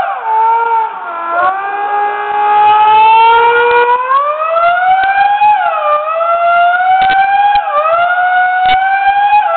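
Air gun giving a loud whistling whine in imitation of a Formula 1 engine. The pitch climbs steadily, drops sharply and climbs again, like a car accelerating up through the gears, with about three such shifts.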